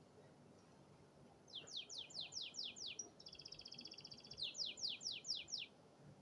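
Domestic canary singing one song phrase, starting about a second and a half in: a run of quick downslurred whistles, a fast rattling trill, then another run of downslurred whistles.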